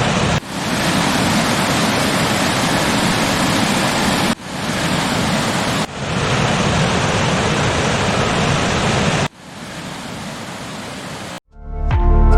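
Waterfall: a steady, dense rush of falling water. It changes level abruptly about four times and is quieter for its last couple of seconds.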